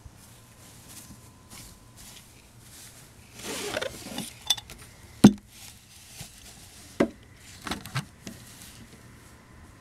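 Close handling noise: a brief rustle, then a few sharp clicks and knocks of hard objects being touched and moved, the loudest about five seconds in.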